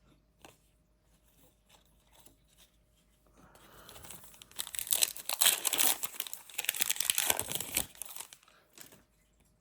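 Foil trading-card pack wrapper being torn open and crinkled by hand, a crackling rustle that starts about three and a half seconds in, peaks around the middle and dies away a second before the end.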